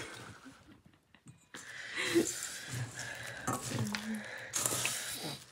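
Spoon stirring chatpat, dry puffed rice mixed with chopped onion, tomato and spices, in a stainless steel bowl, making a crisp rustling crackle. It drops almost to silence about a second in, then picks up again.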